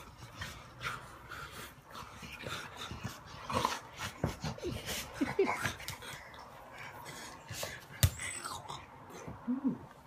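Labrador retriever playing on the floor, giving short whimpers amid scuffling and rustling; a sharp knock about eight seconds in.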